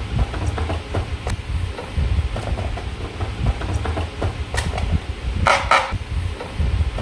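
Slime being worked by hand: sticky clicks and small squishes over uneven low handling rumble, with two short squelches in quick succession about five and a half seconds in.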